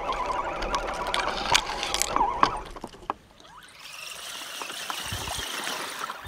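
RC scale crawler's motor and gears whining steadily, heard from a camera on the truck, with scattered clicks as it rolls over grass and gravel. Just under three seconds in this cuts off and gives way to water trickling and splashing as the crawler wades through a shallow muddy stream.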